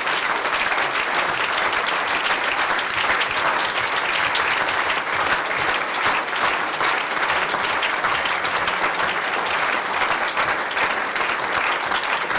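Large audience applauding steadily, a dense, even clapping of many hands.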